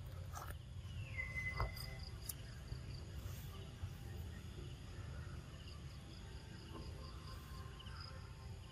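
Faint outdoor ambience: insects chirping steadily over a low rumble. About a second in, one high call drops in pitch and then holds for under a second.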